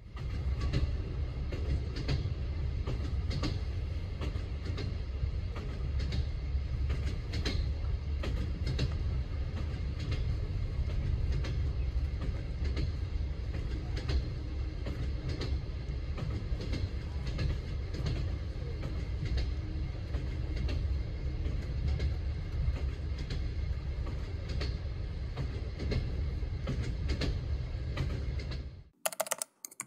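Passenger train running, heard from inside a carriage: a steady low rumble with scattered clicks and knocks, cutting off suddenly near the end.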